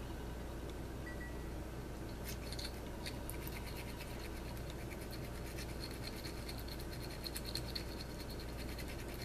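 A pipe cleaner damp with Everclear scratching as it is worked through the shank of a tobacco pipe, a rapid run of fine scratchy ticks that starts about two seconds in, scrubbing out the residue. A low steady hum sits underneath.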